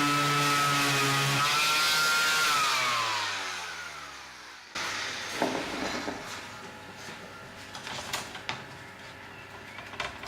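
Electric sander running steadily, then switched off about a second and a half in, its pitch falling as it spins down over the next few seconds. After that, a sudden knock and scattered light clicks and knocks.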